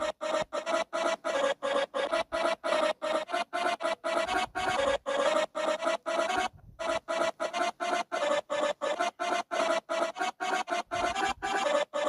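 A rapid string of short electric buzzing zaps, about three or four a second, each a harsh burst at much the same buzzing pitch, cut apart by brief gaps.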